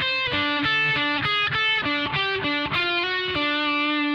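Electric guitar playing a single-note lead phrase: a run of quick picked notes that ends on one long held note near the end.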